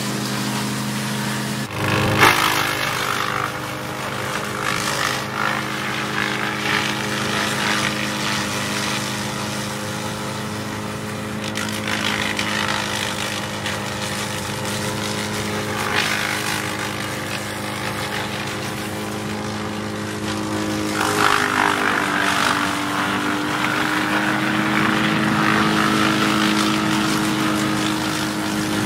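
Bandit Intimidator 12XP branch chipper, fuelled with bioethanol, running steadily while branches are fed in, with repeated bursts of crackling and grinding as it chips them. There is a sharp knock about two seconds in, and the engine note dips briefly under load about twenty-one seconds in.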